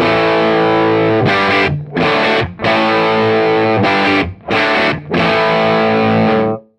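Electric guitar played through a valve (tube) amplifier turned all the way up, giving distorted chords. The amp is set for a cathode-biased output stage, no cathode bypass capacitor on the first gain stage, and negative feedback on. The chords are broken by several short gaps and cut off abruptly near the end.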